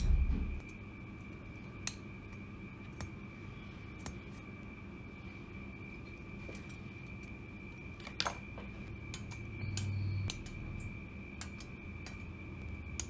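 Sparse small clicks and taps of tweezers on thin laser-cut metal model parts, over a steady faint high-pitched background whine. A low thump comes right at the start.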